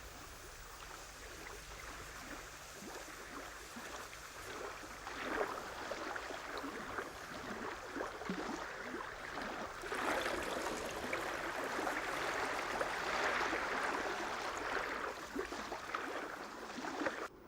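Water splashing and sloshing as a moose wades through shallow marsh water, in irregular splashes that grow heavier past the middle.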